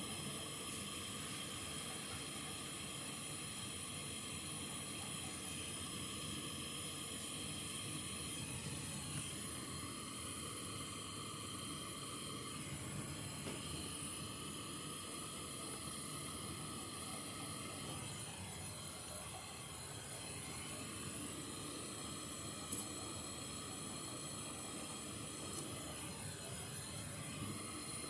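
Steady hissing noise throughout, with a single sharp click a little past two-thirds of the way through.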